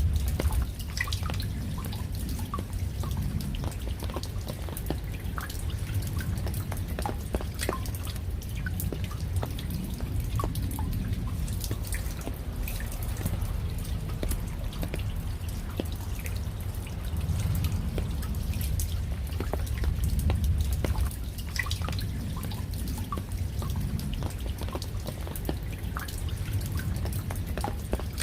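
Raindrops falling and dripping: many separate drops ticking irregularly over a low steady rumble.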